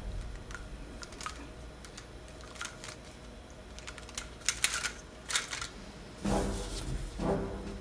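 Light plastic clicks and clatters as the links of a flexible black plastic toy-blaster ammo belt knock together while it is handled, in scattered single and double clicks.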